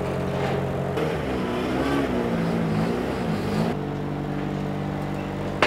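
Modified drift car's engine idling. From about a second in to nearly four seconds its revs rise and fall a few times as it is driven down the tilted bed of a car transporter, then it settles back to a steady idle.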